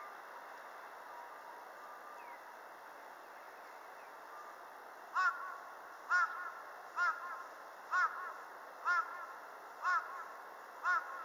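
A crow cawing seven times, about once a second, starting about five seconds in, over steady background noise.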